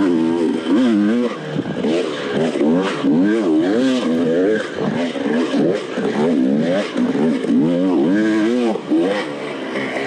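Dirt bike engine revving up and down in quick swings as the throttle is worked on and off over rough trail, with short knocks and rattles from the bike in between.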